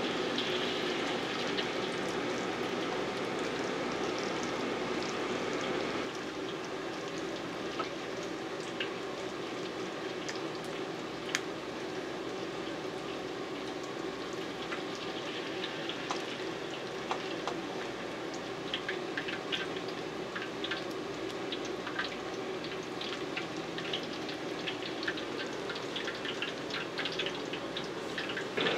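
Menbosha deep-frying in hot oil: a steady sizzle with scattered small pops and crackles. The sizzle steps down in level about six seconds in.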